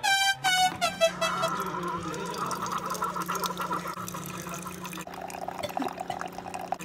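Keurig single-serve coffee maker brewing: a steady hum with coffee streaming and splashing into a ceramic mug. A few notes of music sound in the first second or so.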